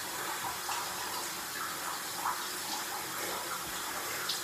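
Running water, a steady hiss.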